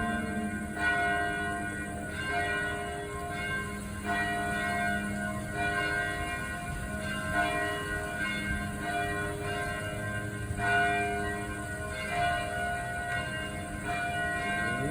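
Church bell ringing, struck about every one and a half to two seconds, each stroke ringing on and overlapping the next.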